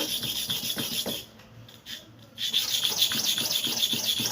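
Hair clipper blade rubbed back and forth on a flat sharpening surface, in quick rasping strokes, to grind it flat. The strokes stop for about a second and then start again.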